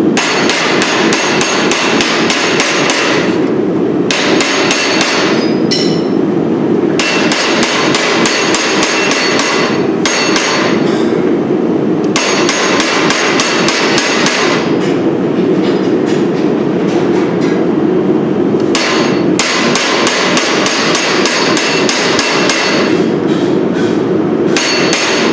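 A hand hammer tapping a steel chisel held against red-hot steel on an anvil: rapid metallic strikes, several a second, in runs of a few seconds with short pauses between them, as details are carved into a forged dragon head.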